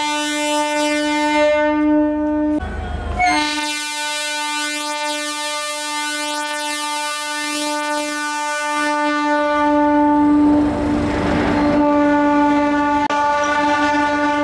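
Diesel-electric multiple unit (DEMU) train horn sounding one long, steady blast, cut off briefly about two and a half seconds in and then held again. A rush of train running noise rises under it around ten seconds in.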